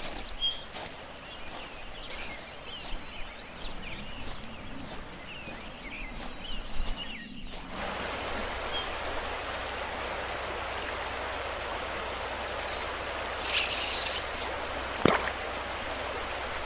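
Birds chirping and singing over a faint outdoor background. About halfway through it switches abruptly to the steady rush of flowing river water, with a couple of brief sharp sounds near the end.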